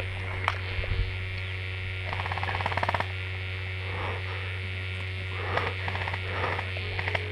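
Steady low electrical hum, with two sharp clicks in the first second and a quick run of rapid ticks about two seconds in.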